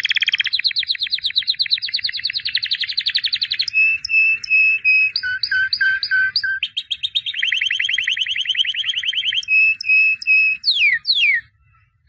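A white canary singing. Fast rolling trills alternate with runs of short, clear, repeated whistled notes, and the phrase ends with two quick downward-sweeping notes a little before the end.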